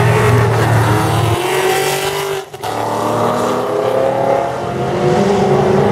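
Drag race cars accelerating hard down the strip, their engine pitch climbing steadily. The sound breaks off briefly about halfway through, then picks up again with another run of engines climbing in pitch.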